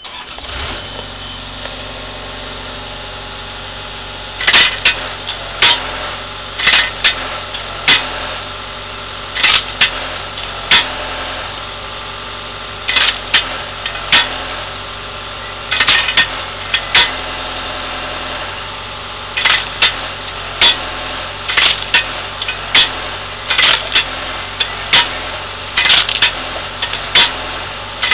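A Cat 297C compact track loader's diesel engine comes up at the start and runs steadily, powering the hydraulic axe-blade wood splitter. From about four seconds in, sharp cracks come roughly once a second, with a short pause midway, as the blade chops down through the firewood and the pieces split.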